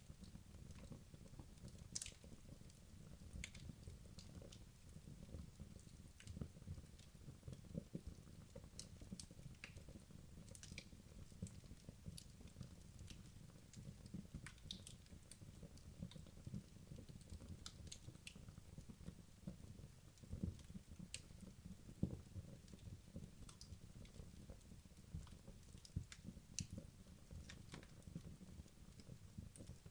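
Wood logs burning in a fireplace: irregular crackles and pops over a low flutter of flame, with a few louder pops, the strongest about 22 seconds in.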